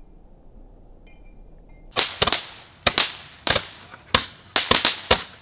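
Fireworks going off in a rapid, irregular series of sharp cracks, about ten of them, starting about two seconds in.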